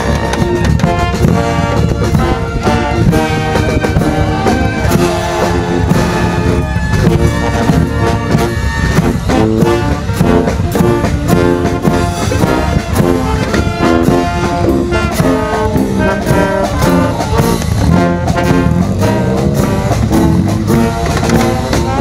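Brass band playing an upbeat tune, with a steady drum beat under the horns.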